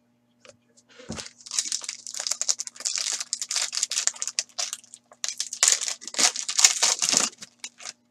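Foil trading-card pack wrapper being torn open and crinkled by hand as the cards are pulled out, a dense crackle that pauses briefly midway. One soft thump about a second in.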